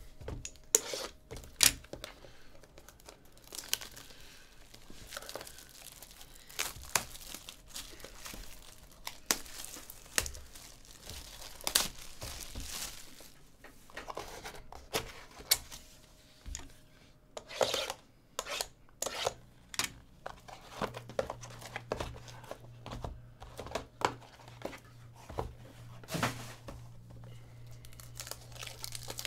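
Clear plastic shrink wrap being slit, torn and peeled off sealed trading-card boxes and crumpled in the hands: an irregular run of crinkling and sharp crackles.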